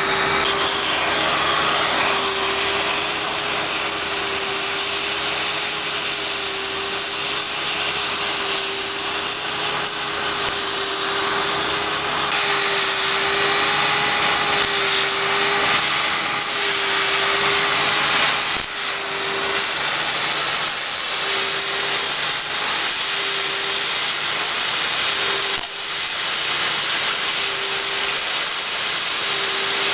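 A machine or power tool running steadily: a loud hissing noise with a hum that wavers up and down at an even pace, dipping briefly twice in the second half.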